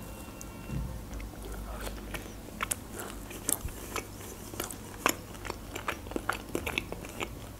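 Close-miked chewing of a bite of black-bread open sandwich with cream cheese and dill: a run of short, sharp crunches and mouth clicks, several a second, from about two and a half seconds in.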